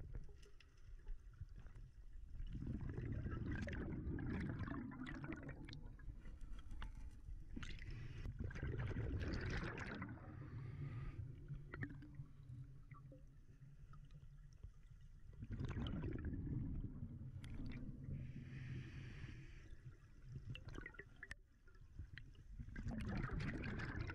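Scuba diver breathing through a regulator, heard underwater: four bursts of exhaled bubbles rumbling and gurgling, several seconds apart, with quieter hissing inhalations between them.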